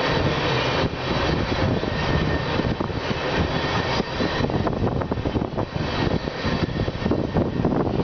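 Freight train of tank cars rolling past: a steady rumble of steel wheels on rail, laced with quick clicks and knocks that grow thicker about halfway through.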